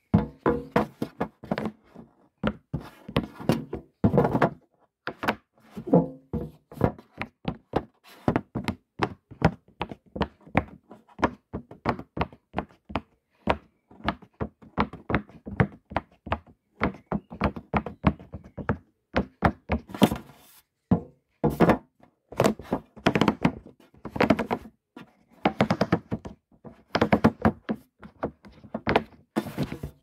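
Fidget toys being handled: an irregular run of short clicks, taps and knocks, several a second, some coming in louder clusters.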